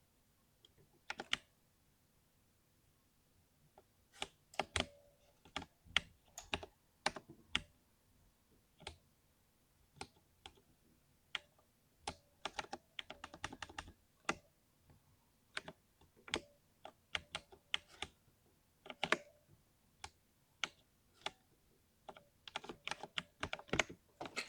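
Mechanical keyboard with Cherry MX Silver linear switches being typed on: irregular keystrokes with short pauses between them, and quick runs of key presses about halfway through and again near the end.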